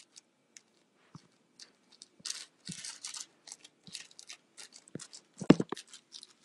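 Phone handling noise: scratchy rubbing and rustling close to the phone's microphone in many short bursts, with a couple of knocks a little past five seconds in.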